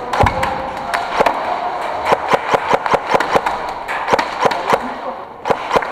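Airsoft guns firing rapid, irregular single shots, about three or four sharp cracks a second, over a steady background hiss.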